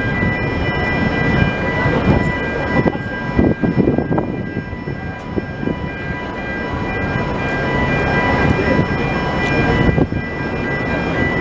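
Heavy rubber-tyred gantry machinery running: a steady mechanical rumble with several thin, steady high whine tones held over it.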